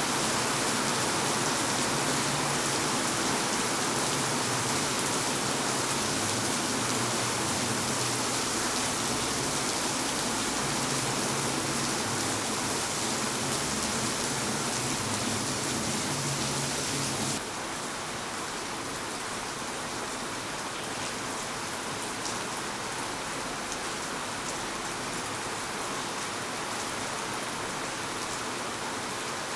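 Steady rain falling, an even hiss of many drops, with a low rumble underneath. About two-thirds of the way through, the sound abruptly becomes a little quieter and the low rumble drops out.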